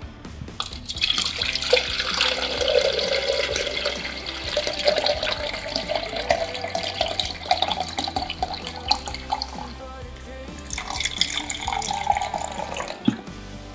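Water poured from a plastic jug into a plastic measuring jug. It splashes and gurgles, with the pitch rising slightly as the jug fills. A long pour stops, and after a short pause a second, shorter pour follows near the end.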